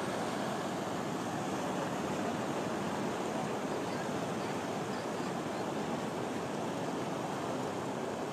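Muddy floodwater of a nullah in spate rushing over a wide bed: a steady, even rush of water.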